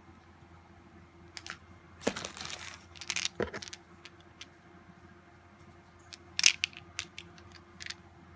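Hands handling pens, plastic tubes and plastic-bagged supplies in a cardboard box: a short stretch of plastic rustling about two seconds in, then scattered sharp clicks and taps, the loudest about six and a half seconds in.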